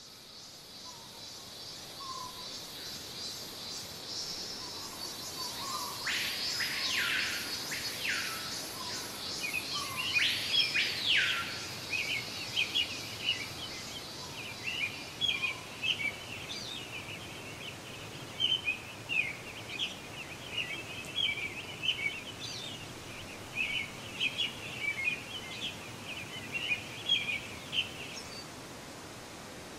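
Tropical forest ambience: a steady high insect buzz fading in, then a few loud whistled bird calls that rise and fall, followed by a long run of short, quick bird chirps.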